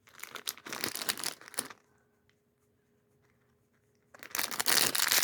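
Packaging from a Lego advent calendar being handled and torn open, crinkling for about two seconds. After a pause of about two seconds, louder, denser crinkling and tearing starts near the end.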